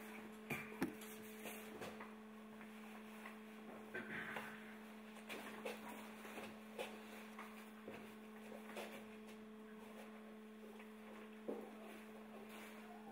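A steady electrical hum, with scattered light clicks and knocks as a leather bridle and its buckles are handled and fitted on a horse's head.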